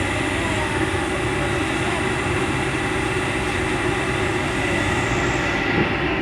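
Heavy diesel engines of an excavator and a dump truck running steadily under load.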